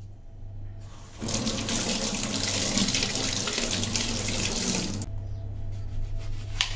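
Kitchen tap running through a clip-on filter nozzle, water splashing over a tomato being rinsed by hand. The flow starts about a second in and stops about five seconds in.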